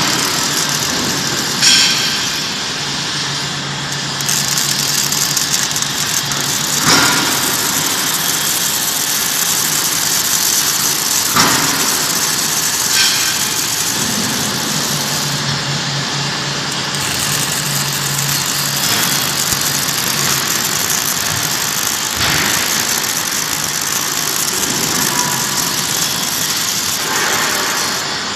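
Robotic wire-fed (MIG/MAG) arc welding on a steel beam: a steady arc noise with a low steady hum beneath it and a few sharp clicks along the way.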